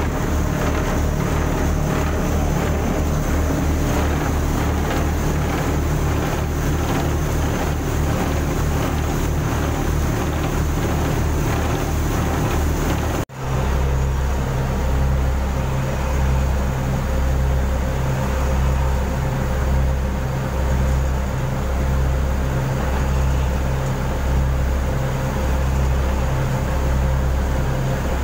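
Chao Phraya express boat's engine running steadily under way, a low drone with water rushing along the hull. The sound drops out for an instant about halfway through.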